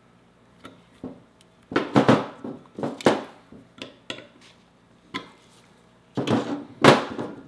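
Metal knocking and clattering as pliers work a cotter pin out of a motorcycle drum-brake pivot plate, jostling the brake panel against the table. There are a few sharp knocks with small clicks between them: a loud cluster about two seconds in, another at three seconds, and the loudest knocks near the end.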